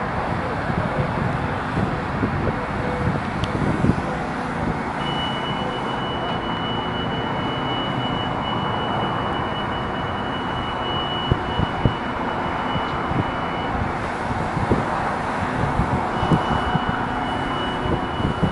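Steady vehicle noise, a continuous low hum with a few small knocks. A thin, high, steady tone sounds for several seconds in the middle and comes back near the end.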